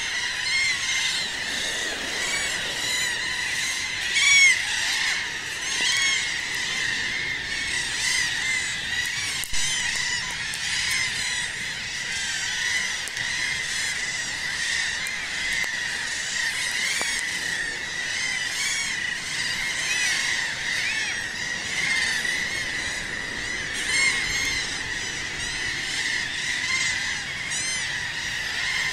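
A dense chorus of seabirds calling from a colony on the rocks: many short, high, rising-and-falling calls overlap without a break.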